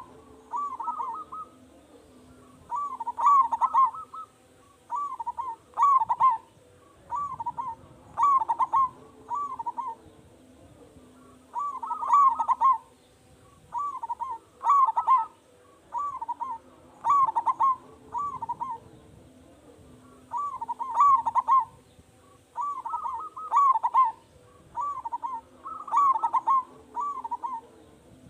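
Zebra dove (perkutut) singing its loud cooing song over and over: quick strings of short ringing coo notes, a phrase roughly every couple of seconds. It is the big-voiced song of the kind used as a lure to set other zebra doves calling.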